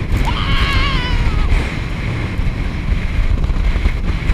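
Wind buffeting the microphone and water rushing past as an inflatable banana boat is towed at speed over the sea. Near the start there is a high, wavering cry lasting about a second.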